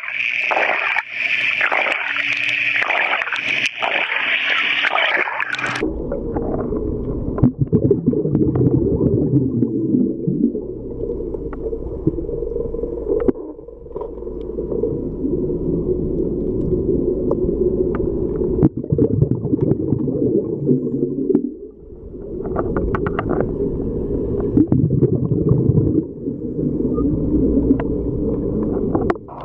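Muffled underwater water noise picked up through a camera's waterproof housing. About six seconds in, a brighter hissing sound broken by short gaps gives way suddenly to a dull low rumble that swells and dips.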